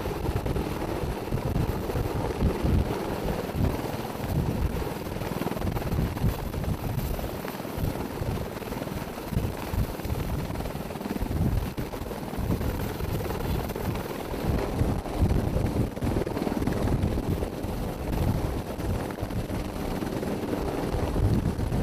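UH-1Y Venom utility helicopter hovering close overhead: a steady rotor and turbine din with a heavy low rumble that surges unevenly, the rotor downwash gusting over the microphone.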